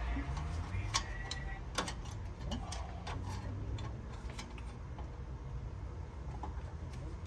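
Irregular metallic clicks and scrapes of a flathead screwdriver working a parking brake shoe spring and its hardware into place on a rear hub, over a steady low rumble.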